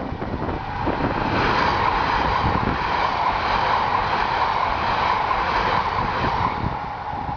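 A train passing over a level crossing, its wheels rushing on the rails. The noise swells about a second in, holds steady, and eases off near the end.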